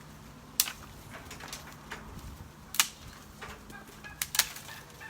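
Sharp cracks and knocks of sticks and a fallen branch being broken and pushed over enclosure netting: a few single snaps, with two close together near the end, over a steady low hum.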